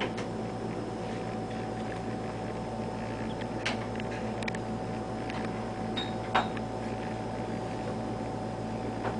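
Steady hum of an ultrasound scanner's fan and electronics in a small exam room, with a few sharp clicks and a brief high beep a little past the middle.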